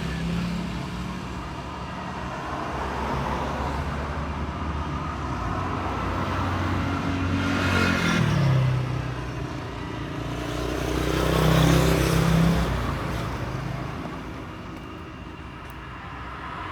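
Road traffic: a steady rumble of vehicles, with one passing vehicle's engine note dropping in pitch about halfway through and another vehicle passing loudly a few seconds later.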